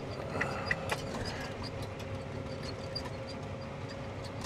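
John Deere 9430T tracked tractor running, heard from inside the cab as a steady low drone with a constant hum above it. There is a faint click about a second in.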